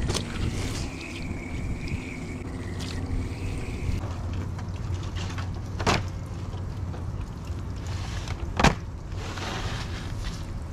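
Garden hose spray nozzle hissing as it rinses raw fish fillets for the first three seconds or so, then the handling of a disposable aluminium foil pan as the fillets go into it. There are two sharp knocks, about six and nine seconds in, and a low rumble underneath throughout.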